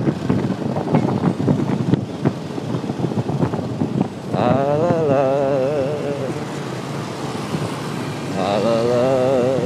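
Wind and road noise from a moving motorcycle, crackling on the microphone. About four seconds in, and again near the end, a man sings long, wavering held notes over it.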